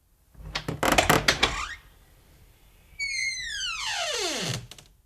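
Squeaky wooden door swinging on its hinges: first a short rattling, crackling creak, then a long squeal that falls steadily in pitch, ending with a couple of light clicks.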